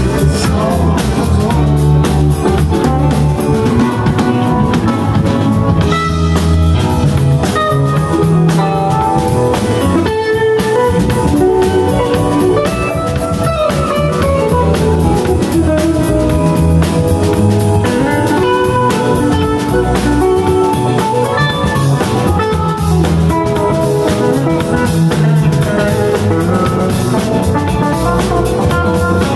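Live band playing: electric guitar over bass, keyboard and a drum kit, with sustained guitar notes gliding in pitch in the middle.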